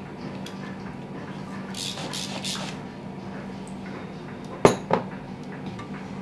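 Kitchen utensils handled at a bowl and pot: a few short scraping rustles about two seconds in, then two sharp metal clinks close together near the five-second mark, over a faint steady low hum.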